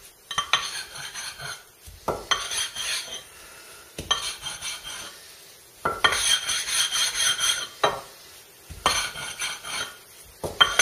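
Coarse DMT diamond plate scraping back and forth across a wet whetstone to flatten it, in several spells of a second or two with short pauses between.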